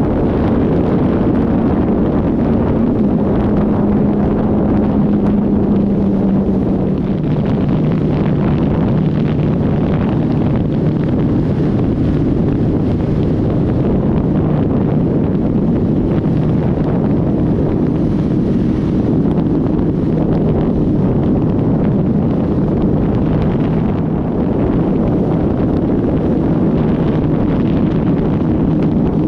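Heavy wind noise buffeting the microphone on a Suzuki Hayabusa at riding speed. Under it, the quiet stock exhaust hum of its inline-four engine is faint, stepping lower in pitch twice in the first few seconds.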